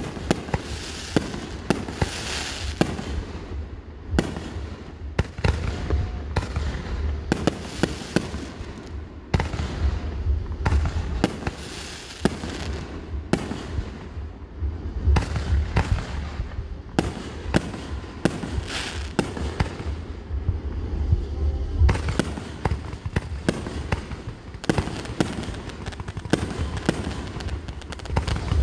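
Aerial fireworks shells bursting overhead in a continuous barrage: many sharp bangs and pops in quick, irregular succession over a steady low rumble.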